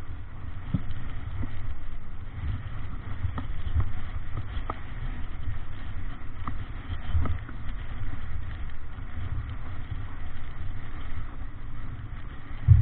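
Wind buffeting the microphone aboard a sailing yacht heeled over and beating into a fresh breeze, with the rush of water and spray along the hull and scattered small ticks and knocks. A sharper thump comes near the end.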